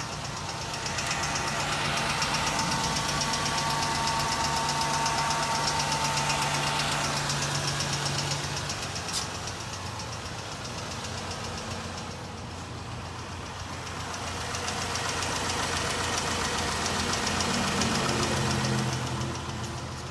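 2014 Ram 1500's 3.6-litre V6 engine running, with a fast, even ticking from the left-side valve cover area: the sign of a bad hydraulic lash adjuster.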